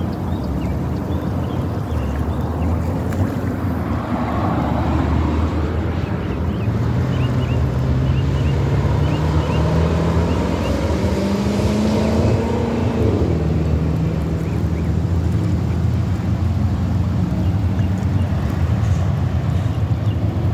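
Wind rumbling on the microphone, with an engine droning underneath that rises in pitch about a third of the way through and then holds steady. A few faint bird chirps.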